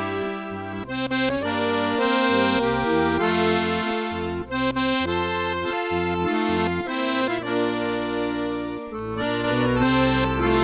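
Instrumental background music: held chords over a bass line that moves to a new note about every half second to second. No firework bangs are heard.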